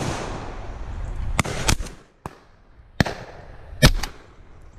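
Shotgun shots at flushed pheasants: several sharp reports, the loudest a close shot about four seconds in, after fainter reports about one and a half and three seconds in.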